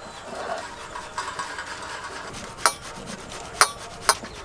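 Soft dragon fruit flesh rubbed back and forth on a stainless-steel hand grater over a steel plate, a quick repeated rasping scrape. Three sharp clicks stand out in the second half.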